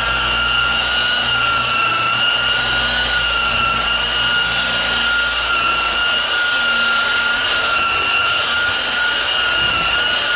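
DeWalt rotary buffer with a wool pad running at steady speed on car paint, a steady high-pitched motor whine, as compound is worked into dry, worn paint in the first cutting stage.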